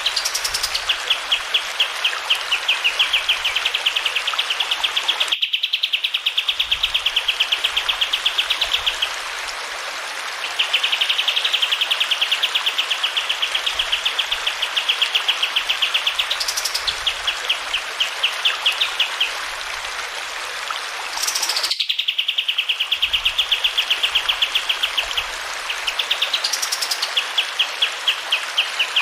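Kapas tembak white-eye singing long, rapid rolling trills of high repeated notes, broken now and then by quick rising whistles, over a steady hiss of running water.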